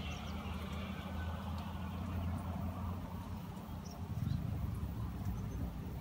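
A steady low engine hum, swelling briefly about four seconds in, with a few faint, short, high bird chirps.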